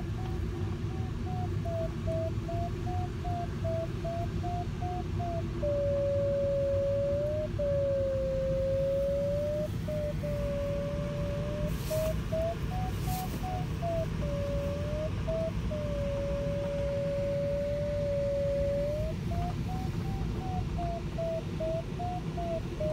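Glider's audio variometer sounding: a quick run of beeps that climbs and falls in pitch, the signal for rising air, alternating with a steady, lower unbroken tone, the signal for sinking air. A constant rush of airflow over the cockpit runs underneath. About halfway through come two sharp clicks a second apart.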